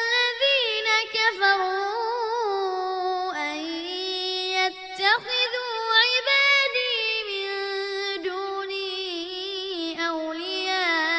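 A child's high voice reciting the Quran in melodic tajweed style, drawing out long held notes with wavering ornaments, broken by brief pauses for breath.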